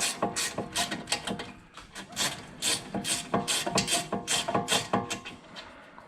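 Irregular metallic clicks and clinks, several with a short ring, as tools and a caliper bolt are handled against the brake caliper.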